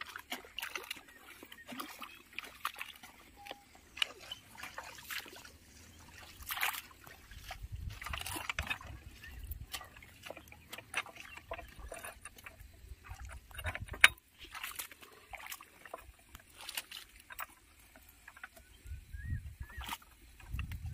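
Wet mud squelching and sloshing as boots and hands work in the flooded paddy around a walking tractor's hitch. Scattered clicks and metal knocks come from handling its frame and bolts, with one sharp click about fourteen seconds in.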